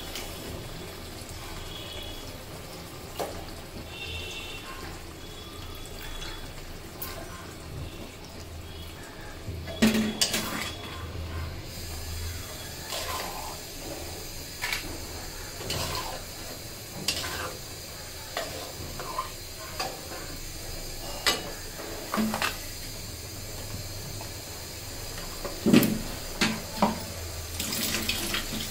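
A long metal spatula scrapes and knocks against a black iron karahi as raw chicken pieces are stirred into a simmering gravy. Sharp clangs are scattered throughout, loudest about ten seconds in and again near the end, over a steady low hiss.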